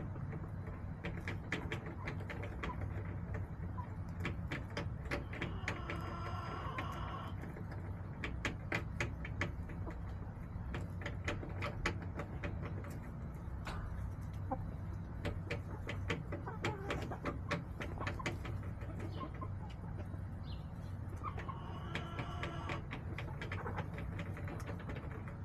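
Backyard hens clucking, with two longer pitched calls, one about six seconds in and one near the end. Frequent light clicks and taps run throughout over a steady low hum.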